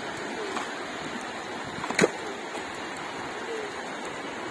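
Steady rush of water with wet splashing as jellyfish are lifted dripping out of a beach seine's water-filled catch bag full of small fish, and one sharp wet slap about two seconds in.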